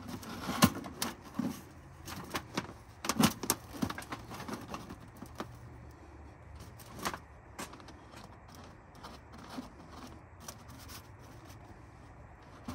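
Titanium wood stove's pipe being worked into the stove's flue collar: metal clinks, scrapes and sharp knocks. The knocks are thick in the first few seconds, then fewer and fainter.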